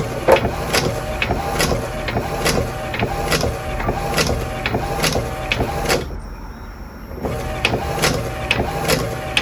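Epson EcoTank inkjet printer running with a strange noise: a regular clicking about two to three times a second over a steady motor whine as the print carriage moves. The owner traces it to a loose tape that should hold the ink hoses. The sound drops away briefly about six seconds in.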